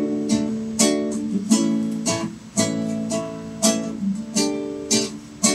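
Acoustic guitar (violão) strummed in a steady rhythm, about two strums a second, the chords ringing on between strokes.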